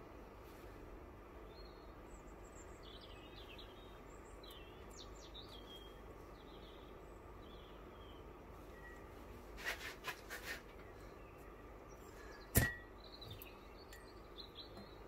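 Small metallic clicks from working valve collets into a cylinder head with a valve spring compressor: a quick run of four or five clicks about ten seconds in, then one sharper clink, the loudest sound, a couple of seconds later. Faint bird chirps and a steady low hum lie underneath.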